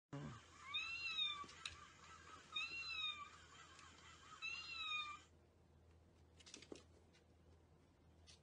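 Electronic meow from a battery-operated walking plush toy kitten: three identical, high, arching calls about two seconds apart. After them come a few faint taps.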